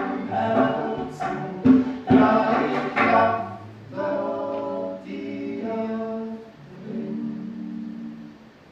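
Acoustic folk band closing a song: several voices singing in harmony over banjo, double bass, guitar and percussion hits, then held vocal chords that change a few times and die away near the end.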